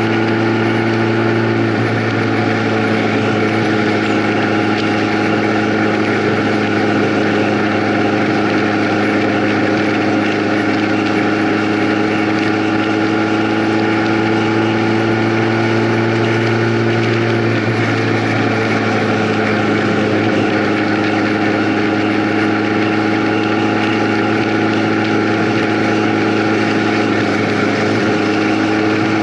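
A vehicle's engine running steadily at an even speed, its pitch stepping slightly a few times.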